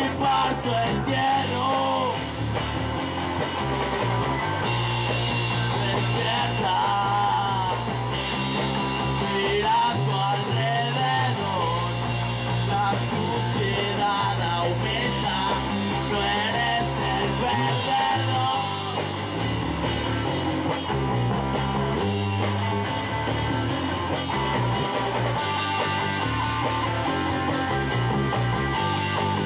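Music playing: a song with singing over guitar and a steady bass line.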